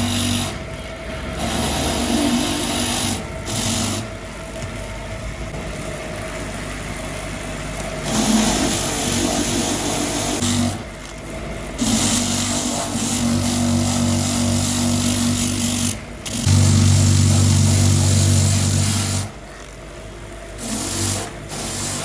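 A handheld power tool running in repeated bursts of a few seconds, with a steady whine and hiss, stopping and restarting several times.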